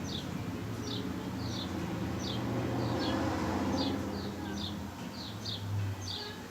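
A bird chirping over and over, short high falling chirps two or three a second, over a steady low hum.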